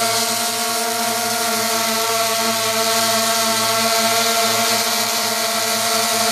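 DJI Phantom v1 quadcopter hovering close overhead, its four motors and propellers making a steady buzzing hum.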